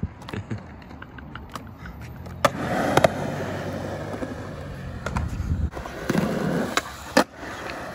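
Skateboard wheels rolling on concrete, broken by several sharp clacks of the board striking the ground, the loudest about three seconds in and near the end.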